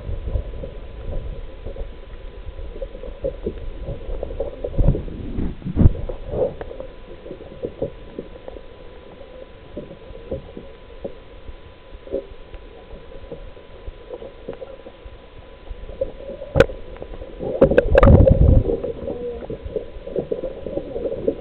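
Muffled water sound picked up by a camera in or at the surface of the sea: sloshing and gurgling with scattered knocks, and a louder rush of water near the end. A faint steady tone runs underneath.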